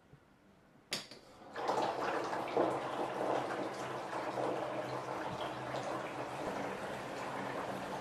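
Water gushing from a bath mixer tap into a freestanding bathtub as it fills, starting with a sharp click about a second in and then running steadily.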